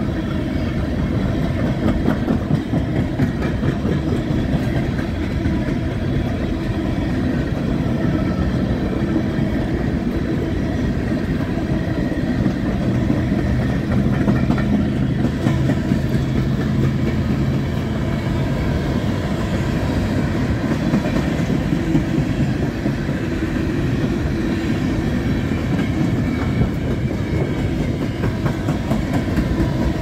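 Empty coal hopper cars of a freight train rolling past: a steady rumble of steel wheels on the rails, laced with rapid clicking and rattling.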